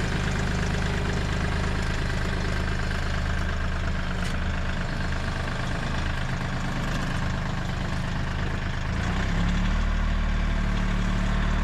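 An engine running steadily at idle with a low hum. About nine seconds in it shifts to a deeper, slightly louder note.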